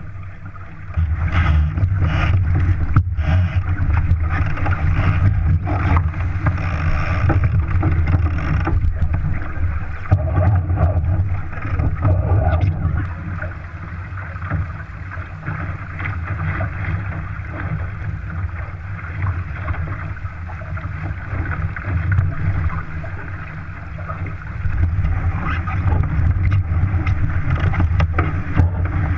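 Wind buffeting the microphone over water rushing and splashing along the hull of a Shaw 650 sportsboat under sail. It eases for a while in the middle and builds again near the end.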